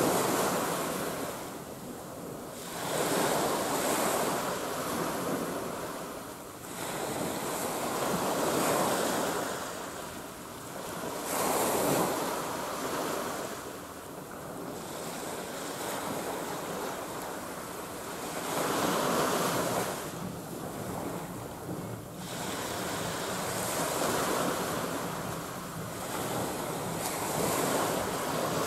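Wind and small waves washing at the water's edge: a steady rushing that swells and eases every few seconds, with wind buffeting the microphone. No ship's engine stands out.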